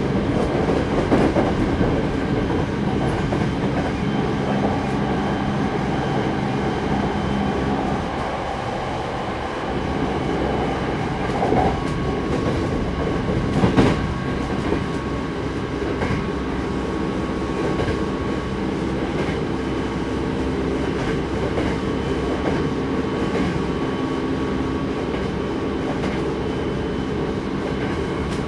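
Hankyu 8200 series electric commuter train heard from on board, running at speed between stations: steady running noise with wheels clattering over rail joints. A steady hum changes about eight seconds in, and there is a single sharp knock about halfway through.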